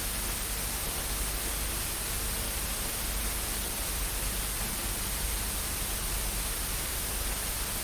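Steady hiss of static noise, even and unchanging.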